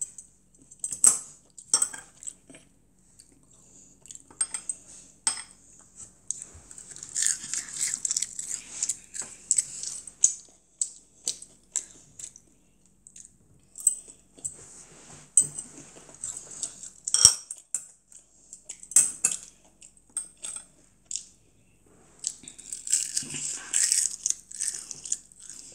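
Metal chopsticks clicking against a ceramic bowl and dish, with close-up chewing of breaded pork cutlet (tonkatsu) and rice that crunches at times. The clicks are scattered through, one sharp clack about two-thirds of the way in is the loudest, and two longer stretches of chewing come near the middle and near the end.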